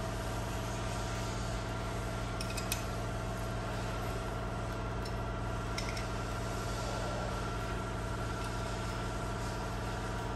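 Steady machine hum, a motor running at an even speed, with a couple of faint clicks.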